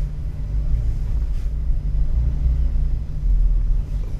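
Jeep's engine and drivetrain running with a steady low rumble while crawling a trail.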